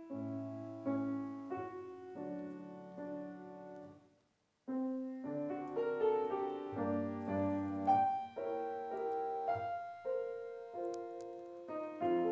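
Solo piano playing slow, held chords. It breaks off for about half a second around four seconds in, then resumes with a melody moving over the chords.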